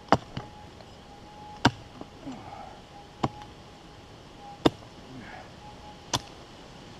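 Prospector's pick striking into hard ground, five sharp blows about one and a half seconds apart, digging out a metal-detector target.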